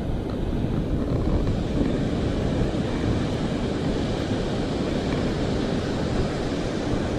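Steady wind buffeting the microphone over the rushing wash of ocean surf on a beach.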